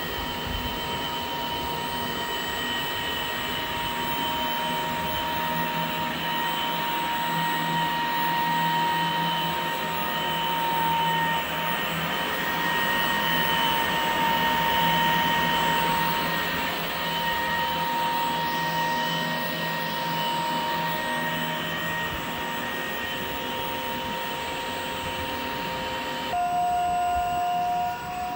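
Pool pump's electric motor running on a solar pump controller: a steady mechanical hum with a steady whine in several pitches over it. About two seconds before the end the whine switches abruptly to a different pitch.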